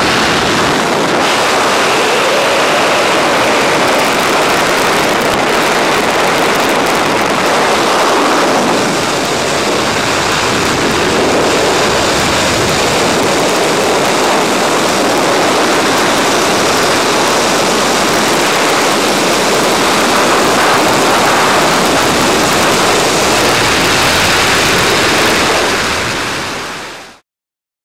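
Loud, steady rush of freefall wind buffeting the camera's microphone, fading out abruptly near the end.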